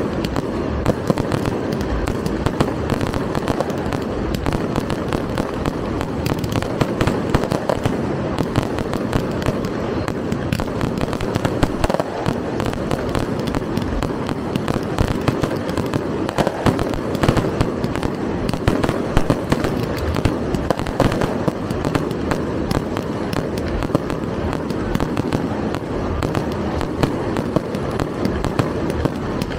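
Aerial fireworks going off in a dense, unbroken stream of rapid bangs and crackles, with shells launching and bursting overhead.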